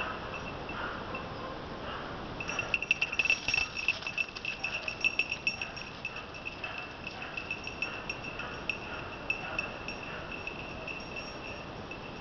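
A hunting dog's bell ringing continuously, jangling rapidly for a few seconds from about two and a half seconds in as the dog moves. Faint, regularly repeated barking of a dog holding a wounded wild boar at bay runs under it.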